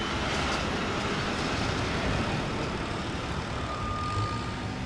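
Steady road-traffic noise with a low rumble of passing vehicles. Near the end a single steady high electronic beep starts.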